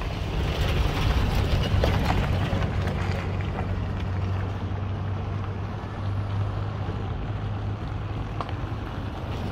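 A vehicle engine running steadily with a low hum, mixed with wind noise on the microphone.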